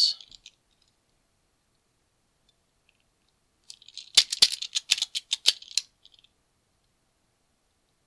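Master Lock Speed Dial padlock: a quick run of sharp clicks and rattles, about two seconds long, midway through, as its directional dial is pushed through moves with the shackle held.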